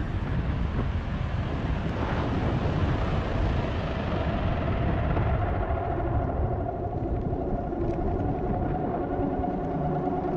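A YT Tues downhill mountain bike ridden on a dirt trail, heard through an action camera: wind buffets the microphone over a steady rumble and rattle of tyres and bike. The hiss fades during the second half, and a faint steady hum comes in.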